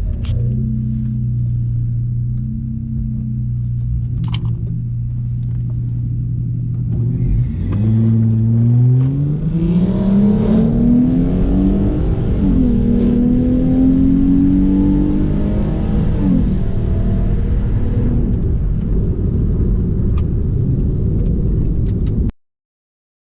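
Dodge Charger's 3.6-litre Pentastar V6 holding a steady note, then accelerating hard down the drag strip, its pitch climbing and dropping back at each upshift of the eight-speed automatic before easing off. The sound cuts off suddenly near the end.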